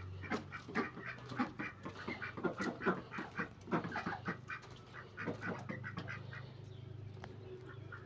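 Domestic ducks quacking in a rapid run of short quacks that thins out after about six seconds, over a low steady hum.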